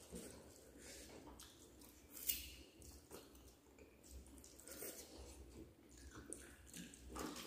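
Faint sounds of people eating rice and fish curry by hand: fingers squishing and mixing rice on steel plates, chewing and lip smacks. Scattered soft clicks and smacks, the sharpest about two seconds in.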